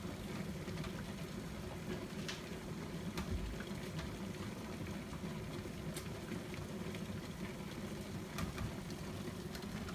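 Water boiling in a saucepan on the stove: a steady bubbling, with a few faint clicks here and there.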